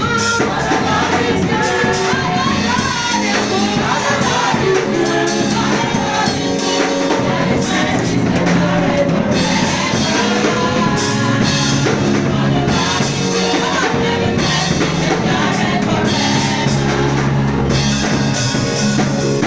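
Gospel song with lead singing and choir over bass, drums and tambourine, playing continuously.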